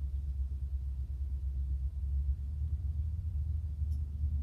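Steady low background rumble with no change in it, and a faint single click about four seconds in.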